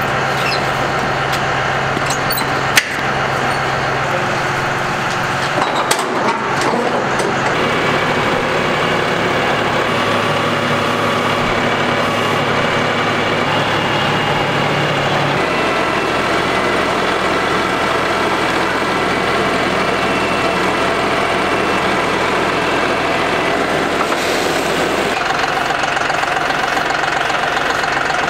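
Diesel engine of a John Deere compact tractor running steadily, its pitch stepping to a new steady note a few times. A single sharp knock about three seconds in.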